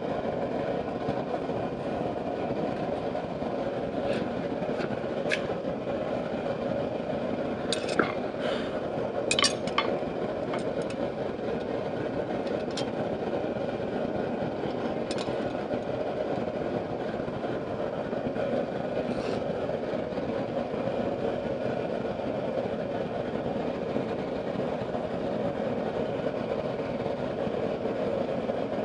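Steady roar of a blacksmith's forge, with a handful of light metal clinks, most of them between about four and ten seconds in.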